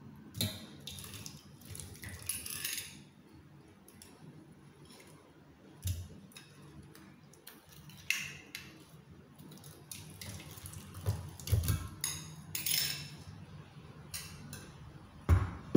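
Metal spoon scraping and clinking against a glass bowl as lumps of frozen milk are scooped out and dropped into a stainless-steel mixer jar, with a few dull knocks.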